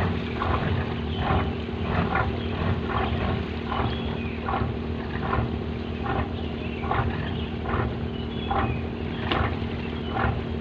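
A boat's engine running with a steady hum and a regular beat about one and a half times a second.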